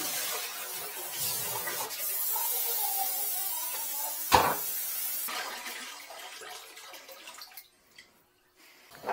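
Water running steadily while a metal drain-cleaning fitting is rinsed at a washbasin, with one sharp knock about four seconds in; the water dies away over the last few seconds.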